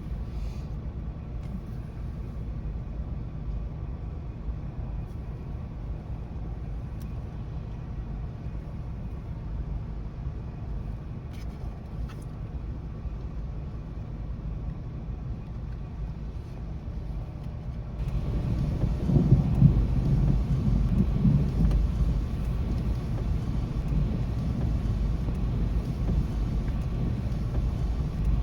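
Steady low outdoor rumble. About eighteen seconds in it abruptly becomes louder and fuller, with a heavier rumble for a few seconds, then settles at the higher level.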